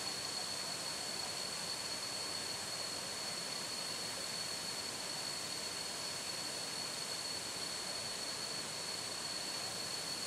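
Water of the Kuang Si waterfall running over its limestone cascades and pools: a steady rushing, with a thin steady high-pitched tone over it.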